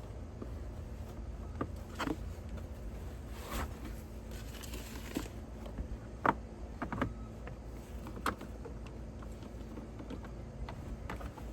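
Scattered clicks and light knocks of plastic dashboard trim and the glove box being handled and fitted back into place, with a brief rustle about four seconds in.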